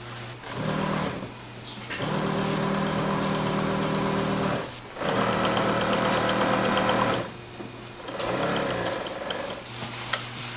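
Industrial sewing machine stitching umbrella fabric in four short runs of one to a few seconds each, stopping briefly between them. The last run speeds up and slows down, and a low steady motor hum carries on through the pauses.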